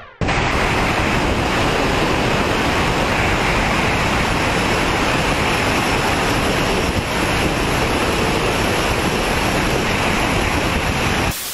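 Strong steady wind rushing over the microphone of a camera mounted on a moving car, mixed with road noise; it cuts off suddenly near the end.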